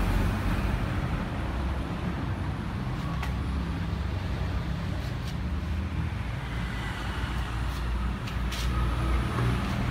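Steady low rumble of motor vehicle noise in the background, with a few faint clicks.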